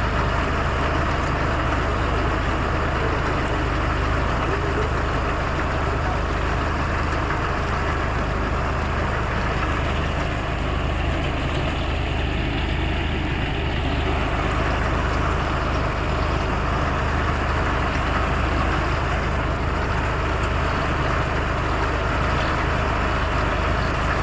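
Tractor engine running steadily at an even speed, with a low, constant hum.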